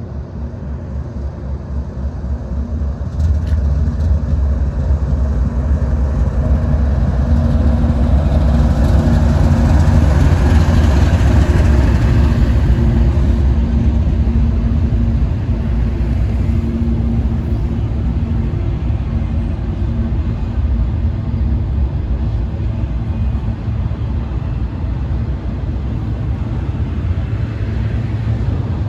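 GE ES44AC diesel-electric locomotive running at the head of a train, its engine drone and rumble growing louder over the first few seconds and loudest about ten seconds in, then settling into a steady rumble.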